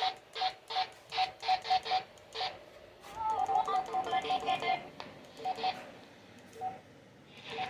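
Rapid series of short electronic beeps at two pitches, about four or five a second, like keypad tones, with a brief gliding tone about three seconds in and a quieter lull near the end.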